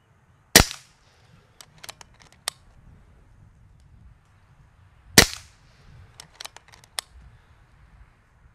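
Kral Puncher Breaker .22 PCP bullpup air rifle firing twice, about four and a half seconds apart, each shot a sharp crack. A few lighter clicks follow each shot.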